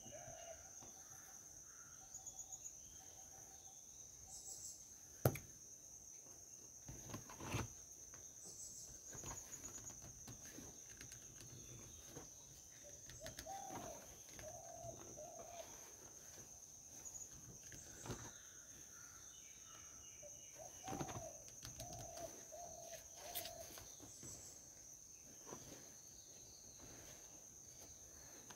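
Faint outdoor ambience: a steady high-pitched insect drone, with a bird giving a short run of repeated calls twice. A few sharp knocks and taps are heard, the loudest about five seconds in.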